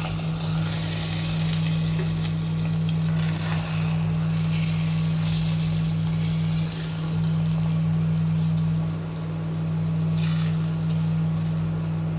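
Eggs sizzling in a frying pan, the sizzle swelling louder a few times, over a steady low hum.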